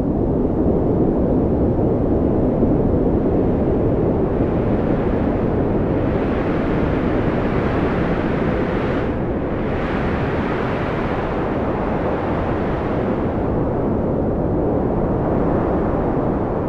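Strong wind blowing in a steady deep rush, swelling and easing slowly over several seconds.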